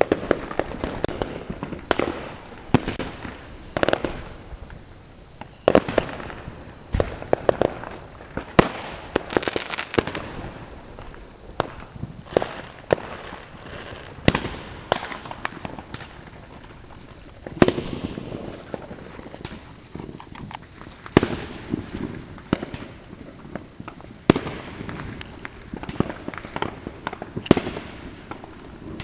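Consumer fireworks going off: a long, irregular series of sharp bangs and pops, some coming in quick clusters.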